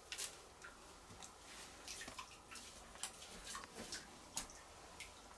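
Faint, irregular light clicks and taps of shoes and hands scrambling over cave rock, with a slight echo.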